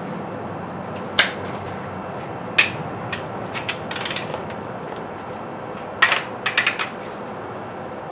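Scattered short metallic clicks and clinks of hand tools being handled, a few at a time with gaps between them.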